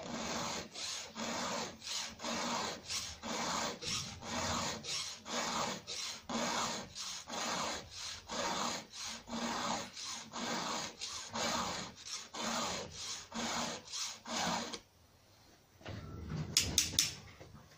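Hand filing of an Oregon EXL saw chain's cutter teeth on a chainsaw clamped in a vise: even rasping file strokes, about two a second, sharpening the cutters' top-plate angle. The strokes stop near the end and give way to a few sharp metallic clinks.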